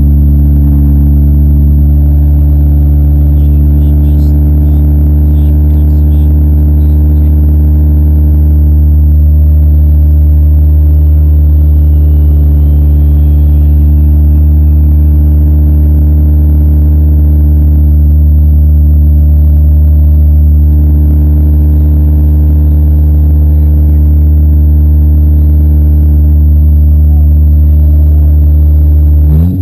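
Demolition derby car's engine running loud and steady at an unchanging speed.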